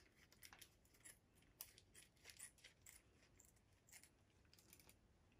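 Faint snips and clicks of kitchen scissors cutting open a plastic sauce sachet, scattered unevenly and very quiet.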